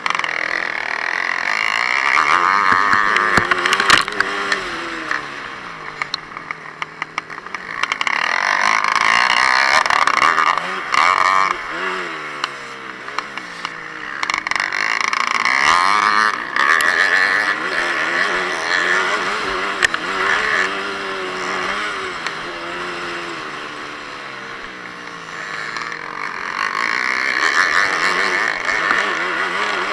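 On-board dirt bike engine racing, its pitch repeatedly climbing and dropping as it accelerates and shifts, surging loudest about four times, with a few sharp knocks.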